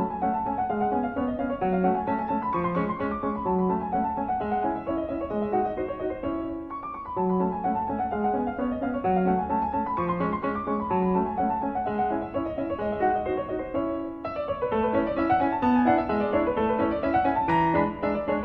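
Background piano music, a steady run of notes moving up and down.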